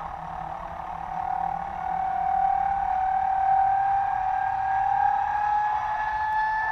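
Freewing T-33 electric ducted-fan RC jet whining, its pitch rising slowly and the sound getting louder about two seconds in.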